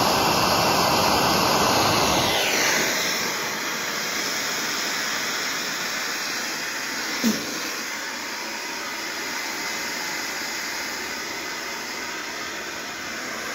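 Torch flame running with a loud roar, whose low rumble drops away about two and a half seconds in, leaving a steady hiss. A single short pop about halfway through.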